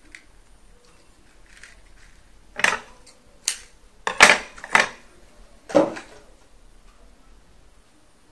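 Five sharp clicks and knocks from scissors and copper wire being handled on a worktable, the loudest about four seconds in.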